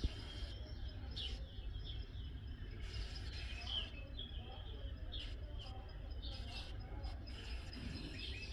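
Birds chirping with short, scattered calls over a steady low rumble.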